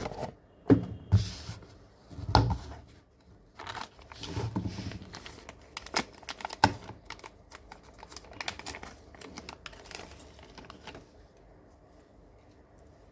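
Packaging being handled: crinkling and rustling with irregular sharp clicks and taps as the glasses box and its contents are opened. The handling dies away about eleven seconds in.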